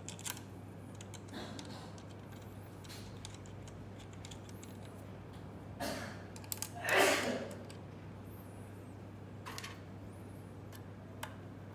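Small clicks and scrapes of screws and a small tool as the fiber laser marking head is screwed to its mounting bracket by hand, with one louder, longer noise about seven seconds in. A steady low hum runs underneath.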